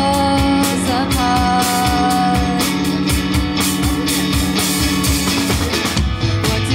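Live rock band playing: electric guitar through an amplifier over a drum kit, with a woman singing long held notes. The low end gets heavier about six seconds in.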